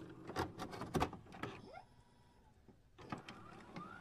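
Faint glitchy electronic sound effect: scattered clicks and ticks with a few short rising sweeps. It drops out for about a second midway and then resumes.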